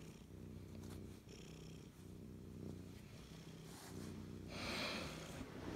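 Domestic cat purring quietly while being scratched on the head and neck, with a brief soft rustle about four and a half seconds in.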